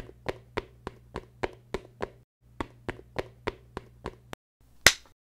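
Footstep sound effect for a walking figure: quick, evenly spaced taps about three a second, with a short break about two seconds in, then one louder tap near the end.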